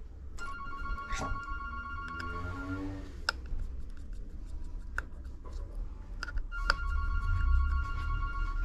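Music with two long held tones, a few seconds apart, over a low hum, with sharp small clicks in between.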